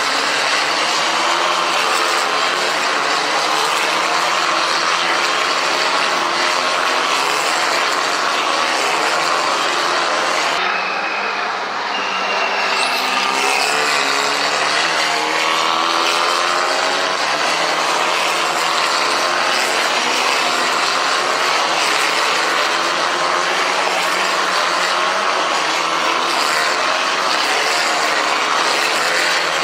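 Formula 4 single-seater race cars' engines running hard at the trackside, several engine notes rising and falling as the cars accelerate, shift and pass.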